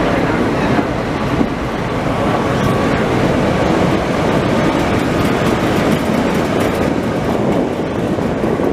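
Heritage tram running along street track, heard from on board: a steady rumble of steel wheels on the rails.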